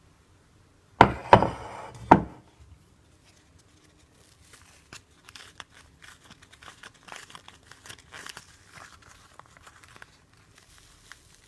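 Three loud, sharp knocks about a second in, then the pleated paper cupcake liner crinkling and tearing as it is peeled off a baked cupcake.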